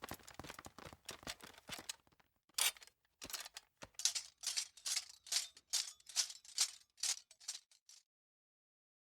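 Cartoon sound effect: fast, light clicking for about two seconds, then a run of short, hissy rattling shakes about two to three a second, which stops abruptly about eight seconds in.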